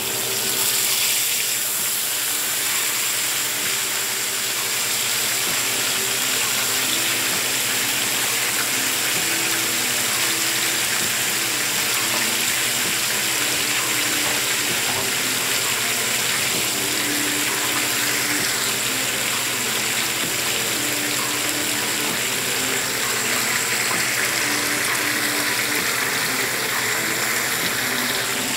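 Whole fish frying in hot oil in a skillet, a steady sizzle. A spatula turns the fish about a second in.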